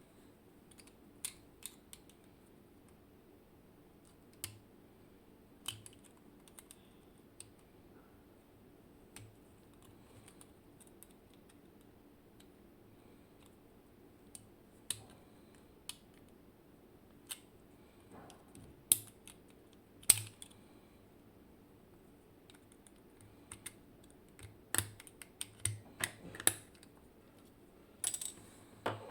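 Scattered small metallic clicks and taps as a Zikon RW6 dimple lock cylinder and tools are handled at the start of disassembly. The clicks are sparse at first and come in quicker clusters in the latter part.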